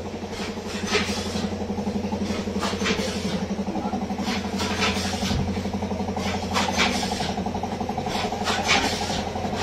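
Snack-factory machinery running with a steady motor hum and a fast, even pulse. Scattered short clicks and rustles sit on top of it.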